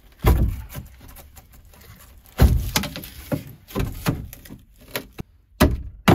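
A series of about nine separate metallic knocks and clunks as a thin sheet-metal wall strut is pried at and pulled off the van's body framing. The loudest knocks come right at the start and about two and a half seconds in.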